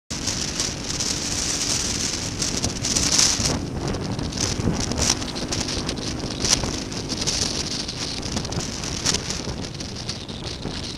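Wind buffeting the microphone of a moving motorcycle in gusts, over the steady hum of its engine; the noise eases slightly toward the end.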